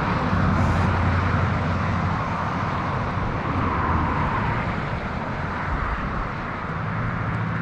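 Steady rush of a high, muddy river running blown out, with a low rumble underneath.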